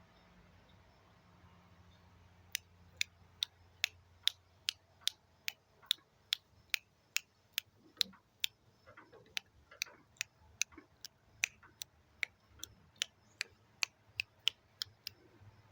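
Regular sharp mechanical clicking, about two to three clicks a second, starting about two and a half seconds in, over a faint low hum.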